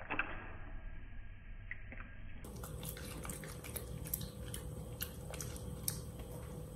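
A Bichon Frise chewing sweet corn kernels: quiet, irregular wet clicks and crunches from its mouth.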